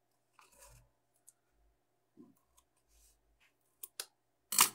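Scissors and craft materials being handled on a table: a few soft clicks and rustles, then a couple of sharper clicks, the loudest near the end.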